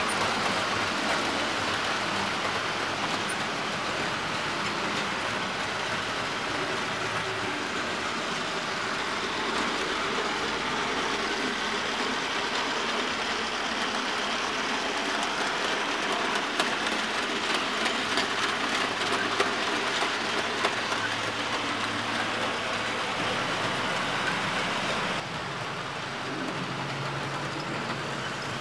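Lima model diesel locomotive running on its track: a steady whirring from the electric motor and wheels, with a few sharp clicks about two-thirds of the way through. The sound drops a little near the end.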